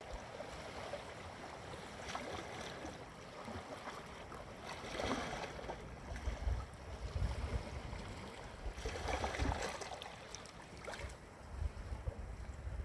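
Small, gentle sea waves washing onto a sandy beach, each wash swelling and fading, four or so in the span, with a low wind rumble on the microphone at times.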